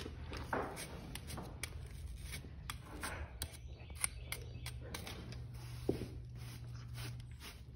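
Grooming brush scratching over a horse's coat in short, irregular strokes, with a steady low hum underneath.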